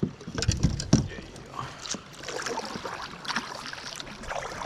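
Water sloshing and splashing around a fishing kayak, with scattered small knocks and clatter of gear against the hull.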